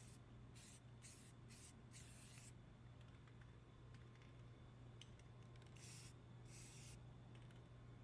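Faint short hisses of an aerosol spray paint can coating sanded bare metal: several quick bursts in the first two and a half seconds and two more about six seconds in, over a low steady hum.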